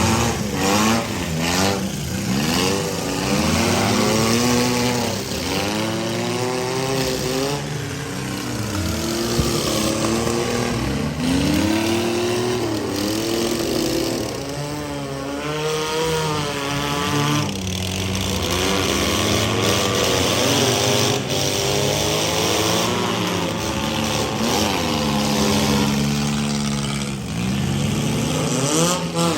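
Several compact and midsize cars' engines revving up and down over one another, with occasional crunching bangs of cars ramming each other in a demolition derby.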